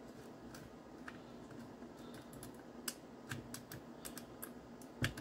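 Faint, scattered small clicks of a metal chip puller gripping and rocking a firmware chip out of its socket on a circuit board, with a sharper click near the end.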